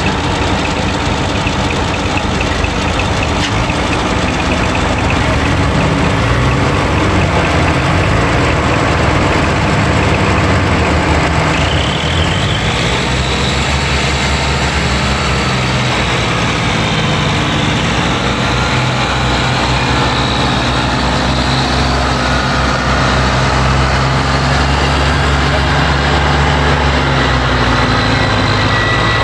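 Several diesel tractors hitched in a line running hard under load to drag a sugarcane-laden trolley and its tractor out of mud. Engine pitch rises and falls through the first dozen seconds, then holds steady.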